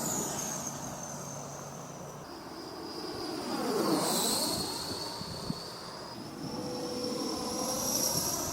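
100 mm electric ducted fan of a 3D-printed F-5 Tiger II model jet whining in flight as it passes. The sound is loudest about four seconds in, where its pitch dips, and the whine climbs in pitch again near the end.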